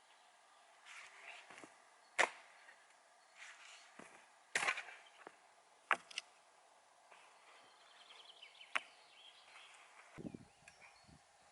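Spade chopping and scraping into the ground: a handful of irregular sharp strikes with softer scraping between them.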